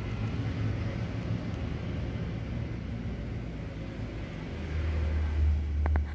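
Steady low rumbling background noise that swells into a louder low hum in the last second and a half, with two sharp clicks just before the end.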